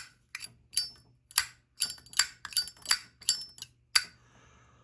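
Metal Zippo lighters clicking and clinking as they are handled: about ten sharp metallic clicks at irregular spacing, several with a brief high ring.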